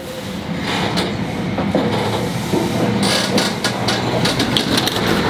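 Mark III passenger coach rolling out of a station, heard from its vestibule by the door window: a steady rumble of wheels on rail with clickety-clack over joints and points, the clicks coming thicker about three seconds in.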